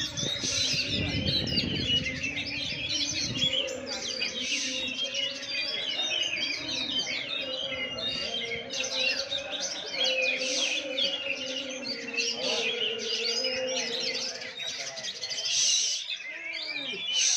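Several oriental magpie-robins (kacer) singing at once: a dense, continuous tangle of loud whistles, chirps and rapid trills.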